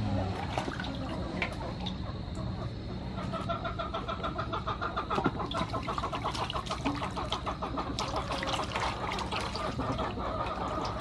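Water splashing as hands wash a carrot, green onions and a cabbage in a large aluminium basin. From about three seconds in, a bird calls in quick repeated notes in the background.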